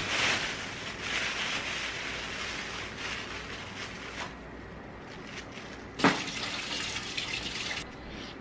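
Thin black plastic carrier bags rustling and crinkling as they are handled and opened, with a single sharp knock about six seconds in.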